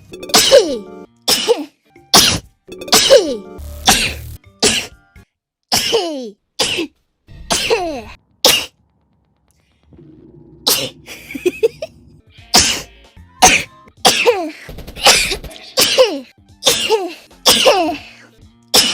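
A woman's sneezes in quick succession, about twenty short sharp bursts, each ending in a falling voiced cry, with a pause of a second or so about halfway.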